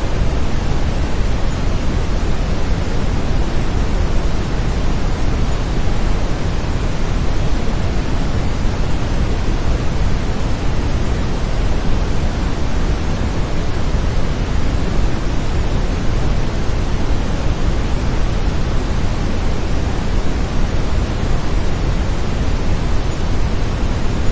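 Steady brown noise: an even, deep hiss weighted toward the low end, unchanging throughout.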